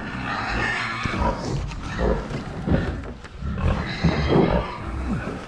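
Pigs grunting and squealing loudly and repeatedly at feeding time, eager for their feed.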